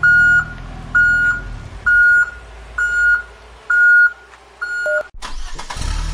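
Electronic warning beeper, like a lift or reversing alarm: six high beeps about once a second. A little after five seconds it gives way to a steady car engine sound effect.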